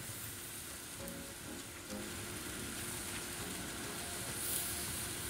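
Tofu, pineapple and vegetable skewers sizzling on a hot grill, a faint steady hiss, with soft background music.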